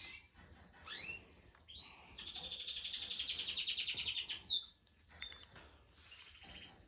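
A songbird singing: a few high chirps and rising notes, then a long, rapid trill lasting about two seconds, and a shorter trill near the end.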